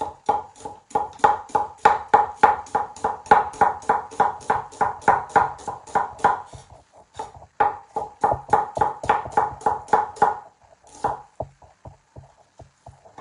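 Chinese cleaver slicing an onion on a wooden cutting board: quick, even knocks of the blade on the board, about five a second, each with a slight ring. The run pauses briefly about halfway and ends in a few slower, lighter taps.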